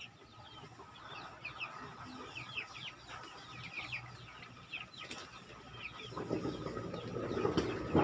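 Young chicks peeping: many short, falling cheeps overlapping throughout. In the last two seconds a low rumble of thunder builds up.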